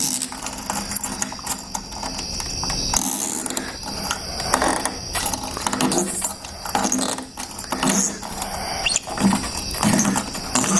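Sliding glass door lock mechanism being worked by hand: irregular metallic clicks, knocks and rattles of the latch and handle parts, over a steady high tone.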